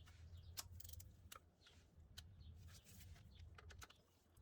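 Faint, scattered metallic clicks of a wrench being worked as a new spark plug is tightened to torque, over a low steady hum.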